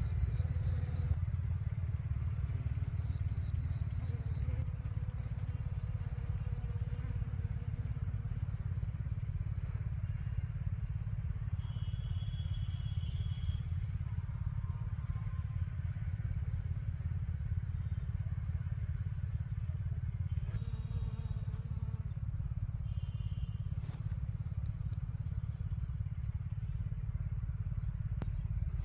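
Wind buffeting the microphone in an open field, a steady low rumble. A few brief high chirps come near the start and again around the middle.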